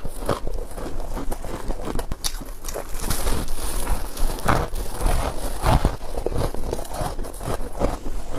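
Close-miked bites into soft, squeaky freezer frost and shaved ice: a string of crunches at an uneven pace, with a few louder ones standing out.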